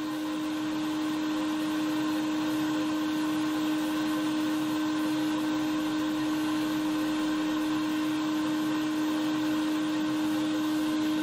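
Air track blower running steadily: a constant hum over rushing air, feeding the air jets that let the glider float almost frictionlessly along the track.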